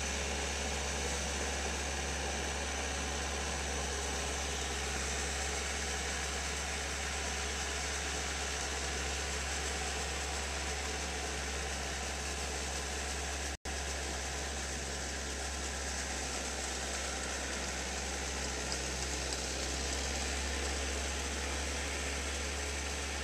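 Compact farm tractor's engine running steadily while it tills a flooded rice paddy, heard with a steady hiss.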